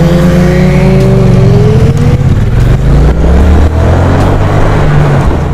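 Triumph Street Cup's parallel-twin engine pulling under acceleration, its pitch climbing slowly over the first couple of seconds and again briefly later, with wind noise on the bike-mounted camera.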